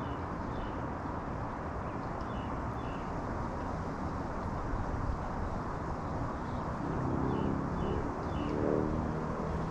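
Outdoor garden ambience: a steady low rumble with faint, short bird chirps now and then, and a low droning tone that swells twice near the end.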